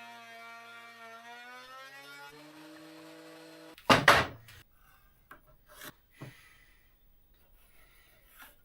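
Table saw motor running with a steady hum whose pitch sags and then recovers, cut off abruptly a little under four seconds in. A loud clatter of wood follows, then a few lighter knocks and clicks.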